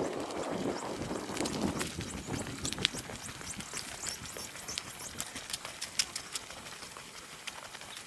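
Footsteps of a person walking on a paved lane, sharp steps about twice a second at an uneven pace, over a steady hiss.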